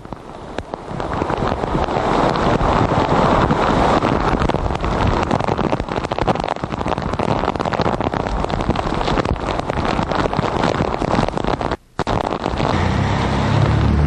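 Storm wind gusting hard on the microphone, mixed with heavy rain and rushing floodwater from a swollen creek, a dense, loud noise. It drops out for a moment about twelve seconds in, and a low rumble joins near the end.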